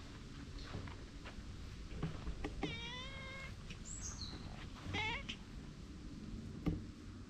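A cat meowing twice: one drawn-out meow about two and a half seconds in, then a shorter, wavering meow about two seconds later.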